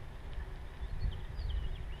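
Low rumble of a bicycle riding along a gravel road, wind and tyre noise on the microphone, with small birds chirping over it in several short, wavering calls.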